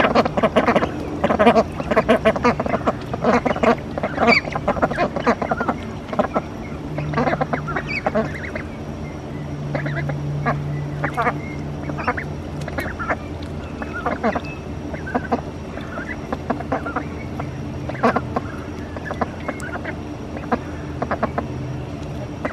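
Domestic ducks quacking and chattering as they swim and dabble in a wading pool: a busy run of calls in the first few seconds, thinning to scattered quacks after that.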